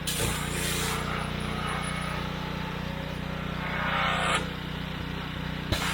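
Pressure washer running: a steady small-engine hum with a hiss of spray that swells twice, briefly, and a sharp click near the end.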